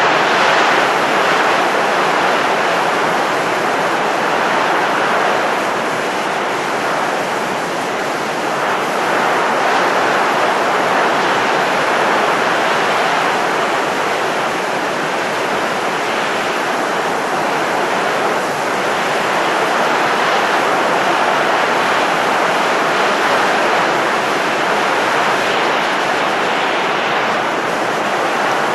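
Steady rushing noise of blowing wind, a continuous hiss that swells and eases slowly every few seconds.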